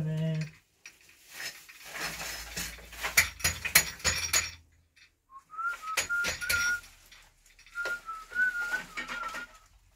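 A person whistling a few short notes in two brief phrases, after a run of light clinks and knocks like dishes being handled in a kitchen.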